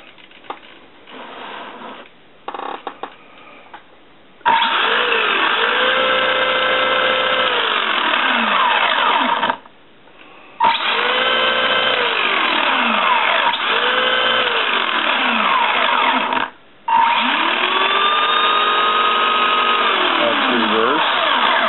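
Radio Shack Golden Arrow RC buggy's electric motor and gearbox whining under throttle, with the wheels spinning free off the ground. It is run up three times: each run rises in pitch, holds, then winds down. The first starts about four and a half seconds in, after a few light handling clicks.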